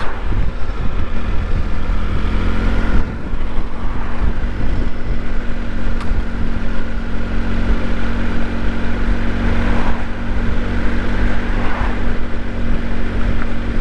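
Motorcycle engine running steadily while riding, with a constant rush of road and wind noise, its level dipping briefly about three seconds in.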